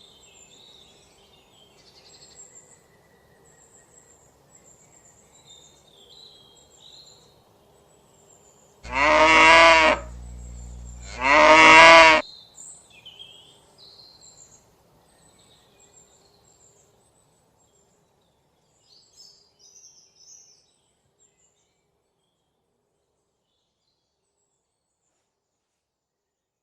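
A cow mooing twice, two loud moos about a second long each, a second apart.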